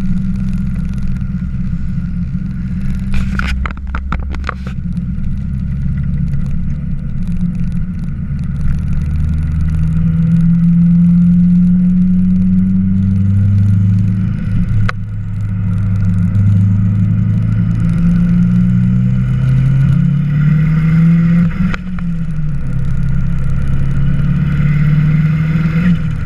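Turbocharged Nissan KA24DET four-cylinder engine under hard acceleration, heard from inside the car's cabin. The engine note climbs steadily, drops suddenly at upshifts about fifteen and twenty-two seconds in, and climbs again. A short burst of rapid clicks comes between about three and four and a half seconds in.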